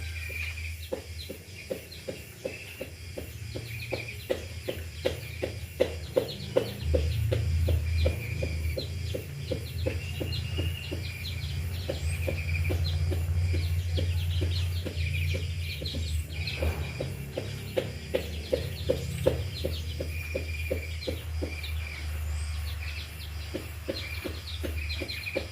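Small birds chirping in an aviary, with many short high call notes repeating throughout. Underneath is a rapid run of short low clicks, several a second, and a steady low hum.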